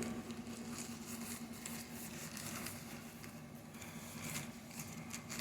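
Faint rustling and small clicks of packaging wrapping being handled and opened, over a steady low hum.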